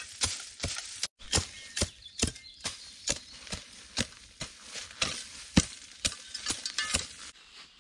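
A hand tool striking wood again and again in a steady series of sharp knocks, about two a second, with a brief break about a second in.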